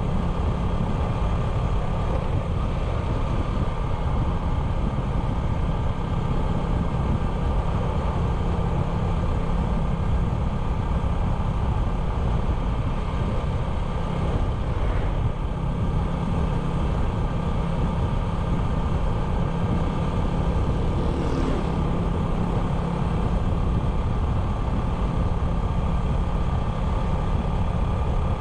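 A 97cc motorbike's engine running at a steady pitch under way, with a low road rumble under it.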